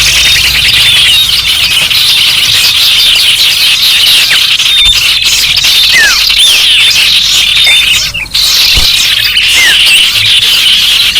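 Many garden birds calling at once: a dense, loud chorus of chirps and chattering with clear falling whistled notes every second or two. There is a brief break about eight seconds in.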